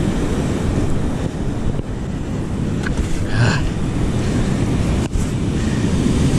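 Steady wind buffeting the microphone over the wash of rough surf.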